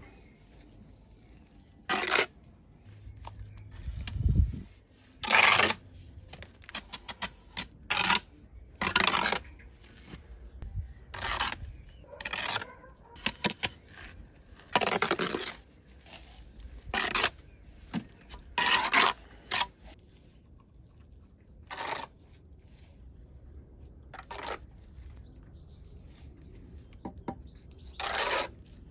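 Brick trowel scraping wet mortar while clay bricks are bedded and knocked into place: a string of short scrapes and taps, with a quick run of clicks about seven seconds in.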